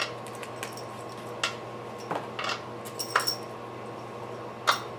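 A screwdriver and bolt clinking and knocking against each other while the bolt is held in place: five or so separate sharp metal clicks, one with a short ring.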